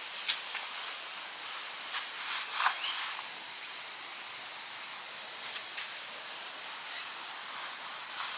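Steady high outdoor hiss, with a few faint clicks scattered through it and a short rising chirp about three seconds in.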